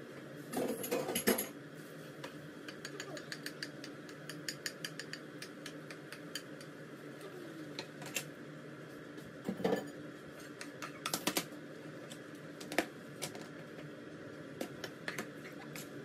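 Wooden spoon stirring and tossing spaghetti and pancetta in a frying pan: scattered light clicks and knocks of the spoon on the pan, with a few louder clusters of clatter, over a steady low hum.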